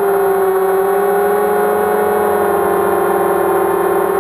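Motors and propellers of a 230 mm quadcopter in flight, heard from its onboard camera: four T-Motor 2206 2000 kV brushless motors turning King Kong 5045 props on a 3S pack. They make a loud, steady whine whose pitch drifts up a little and back down with the throttle.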